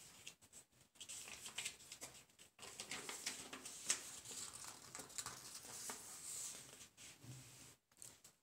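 A sheet of paper being folded by hand, rustling and crinkling in short irregular crackles as the creases are pressed down, with a few brief silent gaps.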